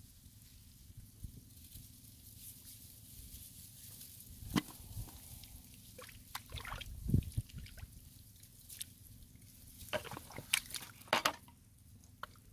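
Hands digging and groping in wet mud: irregular squelches and drips, with louder squelches about four and a half seconds, seven seconds, and ten to eleven seconds in.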